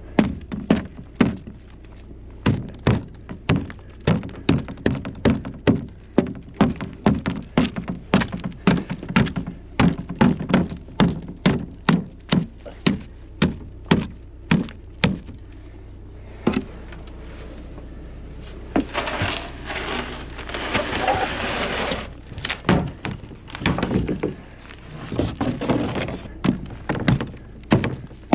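A long series of sharp wooden knocks and thuds, about two a second, with a stretch of rushing, scraping noise about two-thirds of the way through before the knocking resumes.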